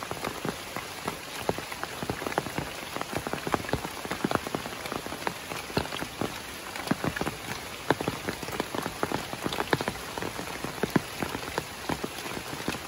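Heavy rain falling: a steady hiss with many separate drops striking close by in sharp, irregular clicks.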